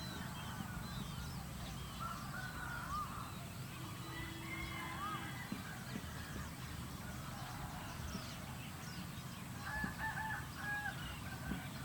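Field ambience: many birds chirping and calling over a steady low background rumble, with a quick run of short, clipped calls about ten seconds in.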